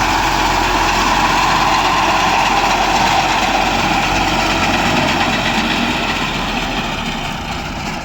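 Engine of a wheat harvesting machine running steadily, growing a little quieter over the last few seconds.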